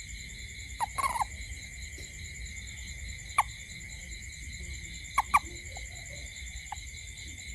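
Frogs giving short, sharp single calls at night, about seven scattered through, the loudest a pair close together about five seconds in. Under them runs a steady, pulsing high-pitched chorus of night insects.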